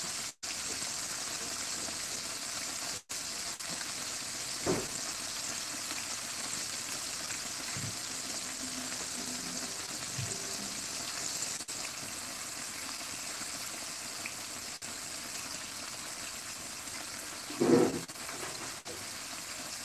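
Breaded chicken pieces deep-frying in hot oil in a frying pan: a steady, high crackling sizzle. A brief low thump sounds near the end.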